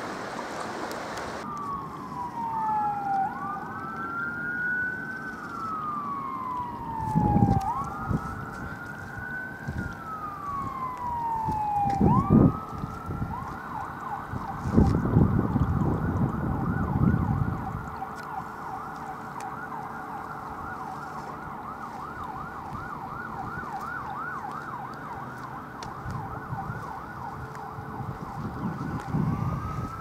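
An emergency vehicle siren wailing in slow rising and falling sweeps, switching to a fast yelp a little before halfway and back to the wail near the end. A rushing noise cuts off abruptly in the first two seconds, and a few low rumbles come in the first half.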